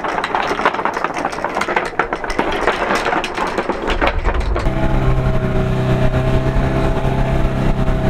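Rushing wind and water noise, then from about halfway a small outboard motor on an inflatable dinghy starts running at a steady speed.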